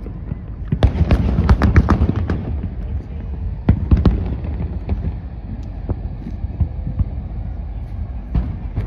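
Aerial fireworks bursting: a rapid cluster of sharp bangs and crackles in the first couple of seconds, a few more around four seconds in, then scattered single bangs and one more near the end, over a steady low rumble.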